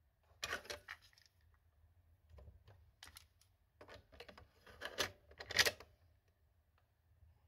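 Plastic clicks and clacks of a Toshiba RT-8055 boombox's cassette deck being handled: the tape door worked and a cassette loaded into Tape 1, a dozen or so separate sharp clicks with the loudest clack about five and a half seconds in.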